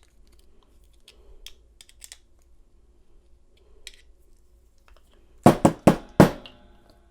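Light metal clicks and scrapes of tools working on a Master Lock padlock while it is taken apart, then a quick run of about five loud, sharp taps about five and a half seconds in.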